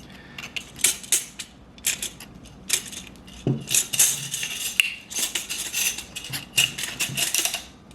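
AR-15 lower receiver parts and tools being handled: irregular light metallic clicks and clinks of small steel parts against each other and the work surface.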